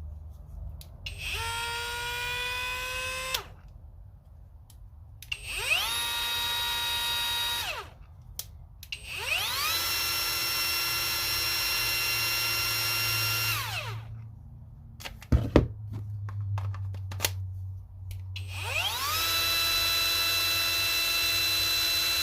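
Kobalt brushless cordless tool, powered by a 4.0 Ah battery, run four times in short bursts. Each run spins up with a rising whine, holds a steady high whine and winds down with falling pitch. The last run is still going at the end, and a couple of clicks fall between the third and fourth runs.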